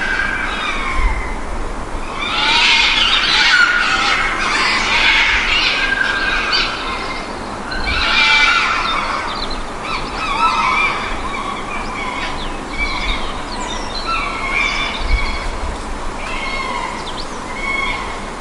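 Overlapping shrill animal cries, each wavering up and down in pitch, following one another with no pause.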